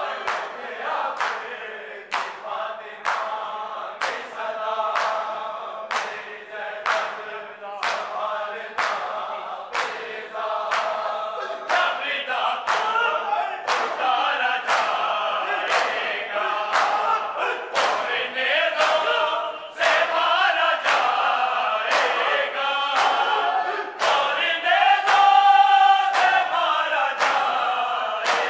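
Men's voices chanting a Shia noha in unison over a steady beat of sharp open-palm slaps on bare chests (matam), roughly two strokes a second. The singing swells into a louder held note near the end.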